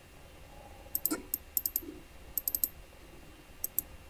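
Computer mouse clicking. Sharp clicks start about a second in and come in quick pairs and small clusters, like double-clicks, with short gaps between them.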